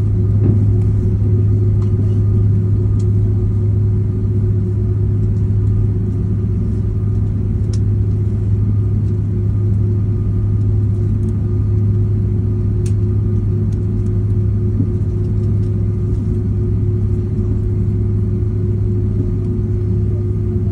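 Steady low drone inside an Airbus A330 cabin as the airliner taxis after landing: jet engines at idle and cabin air, an even hum that does not change.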